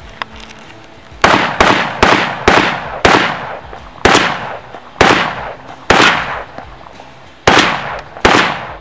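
AK rifle firing about ten single shots at an irregular pace, half a second to a second apart. Each shot is a loud crack followed by a trailing echo.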